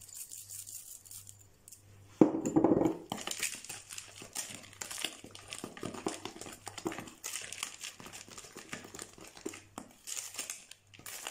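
A spoon stirring chocolate chips into thick ricotta cream in a mixing bowl: many irregular soft scrapes and clicks against the bowl. A short voice-like sound comes about two seconds in.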